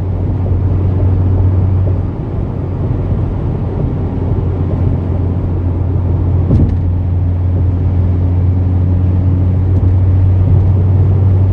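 Cabin drone of a Mitsubishi Lancer Ralliart's turbocharged four-cylinder through an Ultimate Racing axle-back muffler, cruising at about 70–80 mph: a steady low hum under wind and road noise. A brief click about six and a half seconds in.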